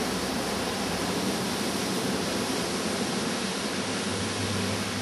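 Steady rushing background noise with no distinct events, and a low hum coming in about four seconds in.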